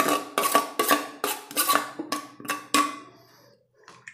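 A steel spoon tapping and scraping grated beetroot off a stainless steel plate into a steel bowl, about four ringing metallic strikes a second. The strikes stop about three seconds in.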